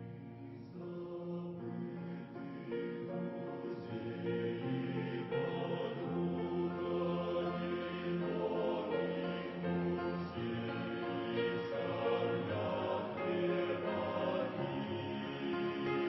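A choir singing a slow hymn in sustained, drawn-out notes, the voices swelling in volume a few seconds in.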